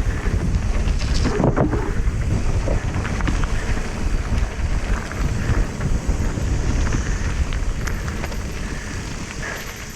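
Wind buffeting the microphone of a mountain bike rider going down a dirt trail, with a steady rumble and many small clicks and rattles from the tyres and bike over the ground.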